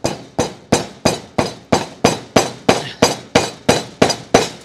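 A hammer striking steadily through a foam kneeling pad onto carriage bolts, about three even blows a second, tapping the bolts of a D-ring tie-down plate down into a wooden trailer deck.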